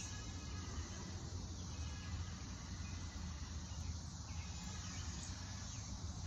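Steady outdoor background noise: a low rumble under an even hiss, with faint high chirps.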